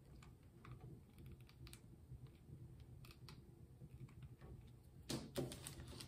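Faint small clicks and taps from a hot glue gun and wooden popsicle sticks being handled on a wooden table, with a louder cluster of knocks about five seconds in as the glue gun is set down on a paper bag.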